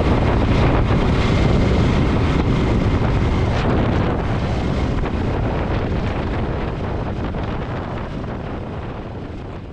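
Wind rushing over the microphone of a motorcycle-mounted action camera at motorway speed, a dense hiss with no clear tones. It fades out steadily through the second half.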